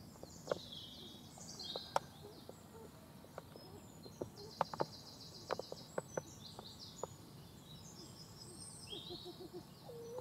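Woodland songbirds singing: repeated high phrases and falling trills. Scattered sharp clicks and taps come close by at irregular times and are the loudest sounds.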